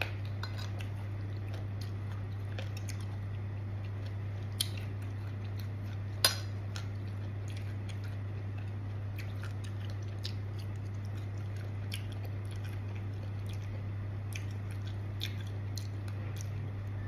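Eating sounds: a spoon clinking on a plate and soft chewing, as small scattered clicks over a steady low hum. Two sharper clinks stand out, about four and a half and six seconds in.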